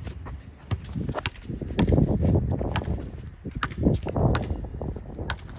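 Footsteps and basketball thuds during play: a run of short, sharp taps and knocks, busiest and loudest in the middle.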